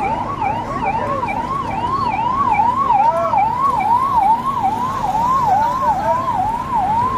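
Vehicle siren in a fast yelp: a rising wail that snaps back and repeats about two and a half times a second.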